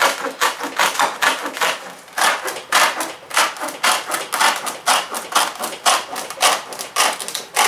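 Straight-cut tin snips cutting through a sheet of Filon fiberglass-reinforced plastic: a steady run of crisp snips, about two to three a second, as the blades chew along the line.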